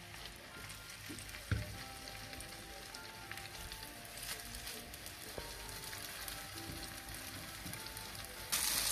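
Raw chicken seekh kebabs sizzling quietly in hot oil in a frying pan as they are laid in one by one, over soft background music. There is a single knock about a second and a half in, and the sizzling gets much louder near the end.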